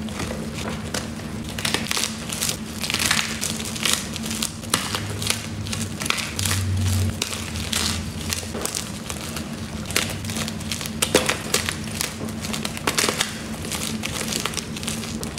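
Blocks of fresh and reformed gym chalk crushed and crumbled by hand, giving a rapid, irregular run of dry crunches and crackles as the chalk breaks into chunks and powder.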